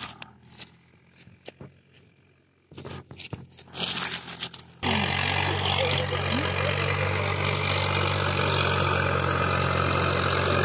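Scattered rustles and clicks, like footsteps through dry wheat stubble, then after an abrupt cut about five seconds in, a Swaraj 744 FE tractor's diesel engine running steadily and loudly while it pulls a disc harrow through the soil.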